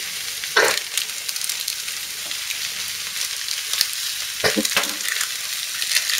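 Cabbage and onion sizzling and crackling in a hot frying pan during a stir-fry. Two short knocks from handling at the pan come about half a second in and again around four and a half seconds.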